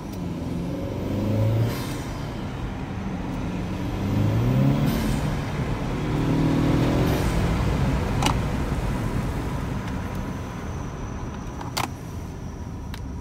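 2018 Honda Accord 2.0T's turbocharged four-cylinder, breathing through a short open foam mushroom intake, pulling under acceleration as heard from inside the cabin. The engine note rises and drops back at each upshift about three times, then settles into a steadier cruise. Two sharp clicks come in the second half.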